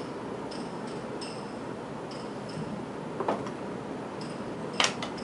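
Handling of makeup tools and a folding hand mirror: a light click about three seconds in and a sharper clack near the end, over faint high ticks that recur irregularly.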